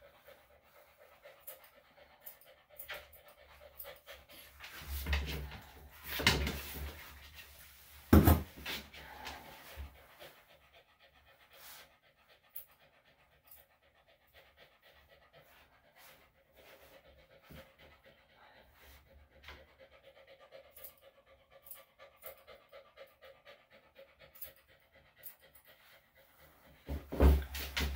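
A senior Bichon/Shih Tzu mix dog panting, with the small snips and clicks of grooming scissors trimming the hair between its paw pads. A few louder knocks and rustles come about five to eight seconds in.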